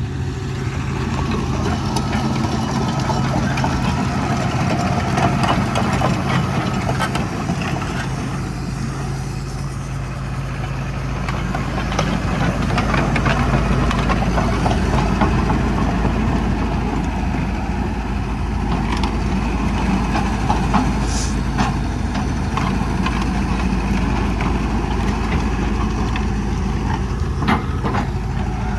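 Hitachi 245 USLC-6 excavator's diesel engine running steadily, getting louder about a second in and again about twelve seconds in, with scattered knocks and clanks.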